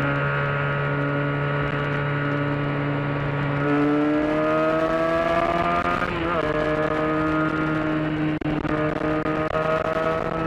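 Benelli 302's parallel-twin engine pulling under acceleration: its pitch climbs steadily, drops at a gear change about six seconds in, then climbs again, with another brief break near the end.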